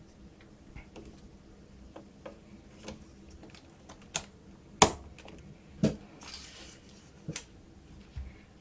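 RAM sticks being pressed into a motherboard's memory slots: a series of sharp plastic clicks and taps as the slot latches snap shut, the two loudest about five and six seconds in, with a brief rustle of handling between them.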